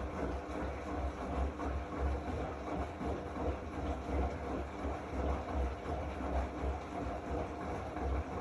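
Zanussi AquaCycle 500 FA 623 washing machine running its drum motor: a steady motor hum over a low, pulsing rumble from the turning drum.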